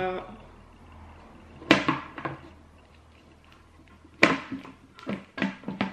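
Plastic lid being pressed and snapped onto a bucket: a series of sharp clicks and knocks, the loudest about four seconds in.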